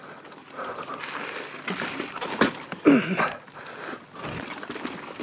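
Mountain biker breathing hard with effort while grinding up a steep rock ledge, with a short grunt about three seconds in and scattered knocks and clicks from the bike on the rock.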